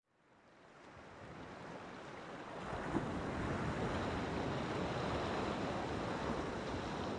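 Seaside ambience: a steady rush of surf and wind that fades in from silence over the first few seconds.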